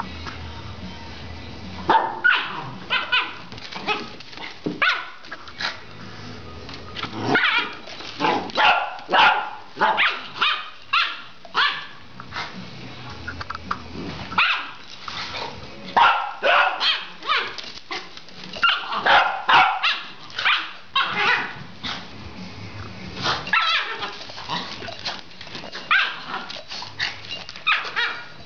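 Small dogs barking during rough play, in clusters of short barks with brief pauses between them.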